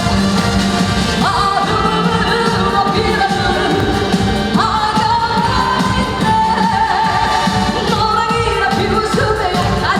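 Live Korean trot song: a singer holds long notes, sliding up into each new phrase, over a full band with a steady beat.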